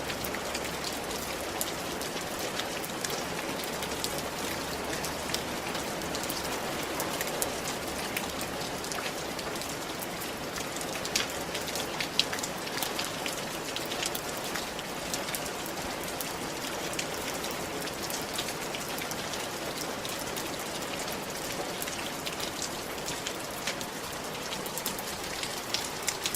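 Steady rain falling, with many small drop impacts ticking on nearby surfaces.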